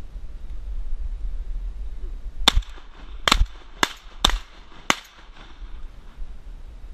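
Five shotgun shots fired in quick succession, starting about two and a half seconds in and spread over about two and a half seconds.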